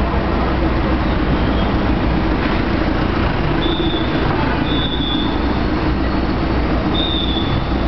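Street traffic: car and taxi engines running and tyres passing close by, a steady low drone, with three short high squeals about three and a half, four and a half and seven seconds in.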